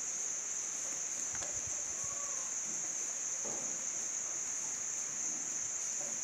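Steady high-pitched insect drone, unbroken at one level, with a few faint short sounds beneath it, one about halfway through.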